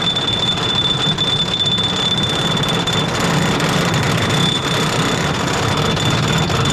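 Gravity Group Timberliner train running on a wooden roller coaster track: a loud, steady rumble of the wheels and rushing air, with a thin, steady high-pitched squeal over it.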